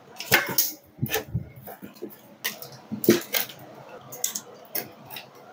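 Irregular clicks, knocks and clatter from an opened dot-matrix printer being handled: its sheet-metal chassis and circuit boards are moved and worked on by hand. The loudest knocks come about a third of a second and about three seconds in.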